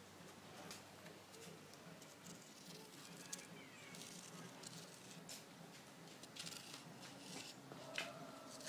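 Faint, irregular soft clicks and crackles of a cat chewing on a snake.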